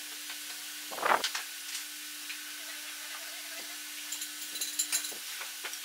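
A single knock about a second in as an aluminium T-track is set against a wooden strip on a workbench, then faint pencil scratching and light taps as a line is marked along the track, over a steady faint hum.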